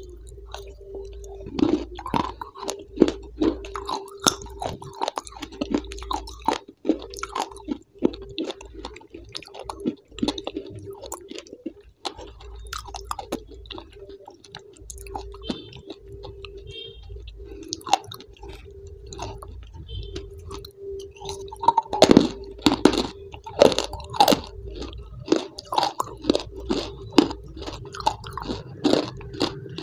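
Close-miked mouth-eating sounds: chewing and crunching with many sharp, irregular crackling clicks, loudest about two-thirds of the way through, over a steady hum.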